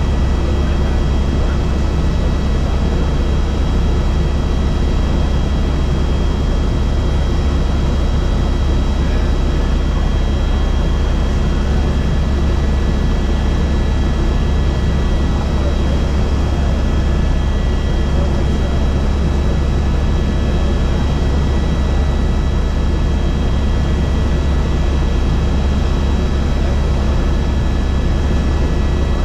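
Helicopter in flight: a loud, unbroken drone of engine and rotor, heaviest in the low end, with a faint steady high whine over it.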